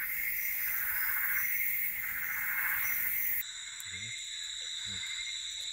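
Tropical rainforest insect chorus: a dense, loud high buzzing with steady pitched bands. A little over three seconds in, it cuts off abruptly and gives way to a quieter insect chorus holding steady high tones.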